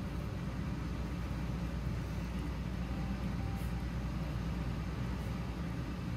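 A dog gnawing on a cooked ham bone, with a few faint crunches, over a steady low rumble.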